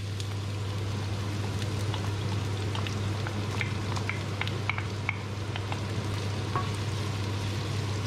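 Chopped red onions and garlic sizzling and crackling in hot oil in a frying pan, with scattered sharp spits, and a wooden spoon stirring them. A kitchen extractor hood fan hums steadily underneath.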